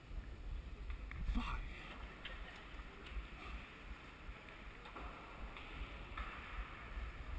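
Low, fluctuating rumble on an action camera's microphone, with a few brief rustles about a second in and again later.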